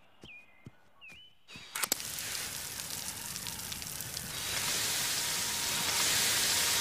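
Garden sprinklers turning on, with a few clicks about a second and a half in and then a steady spraying hiss that grows louder near the middle as more of them spray. Before that, a few short chirps and light taps sound over near quiet.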